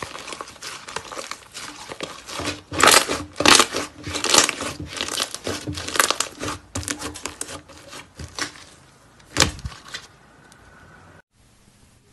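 Thick slime being squeezed, stretched and pressed by hand, giving dense runs of sticky crackling clicks and pops, loudest in the middle. It thins out and goes faint near the end.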